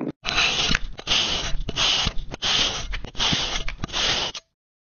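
Pink kinetic sand being sliced through a metal cutter blade: about six grainy scraping strokes in quick succession, each lasting half a second or more, stopping shortly before the end.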